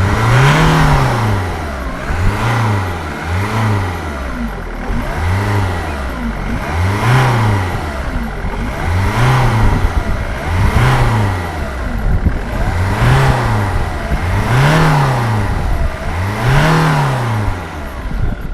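Ford Mondeo 2.0 TDCi four-cylinder diesel engine being revved repeatedly from idle, about one blip every two seconds, each rising then falling back. The engine is still cold.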